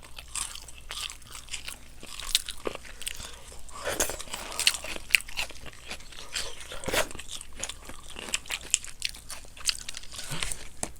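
Crunching and chewing of crispy honey-glazed fried chicken, with many sharp, irregular crunches of the fried coating being bitten.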